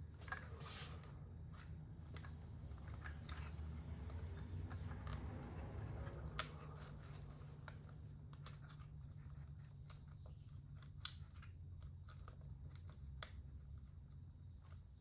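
Scattered small clicks, snips and rustles of hands and tools working on the RC car's parts and wiring, with a few sharper clicks, over a steady low hum.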